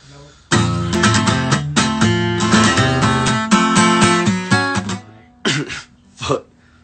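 Acoustic guitar being played, chords ringing out note over note, stopping about five seconds in.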